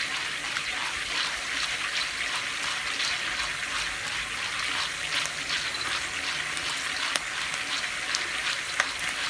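Popcorn kernels sizzling in hot fat in a wok on high heat, stirred constantly with a heat-resistant spatula: the kernels are heating up just before they start to pop. A steady sizzle, with a few sharp clicks near the end.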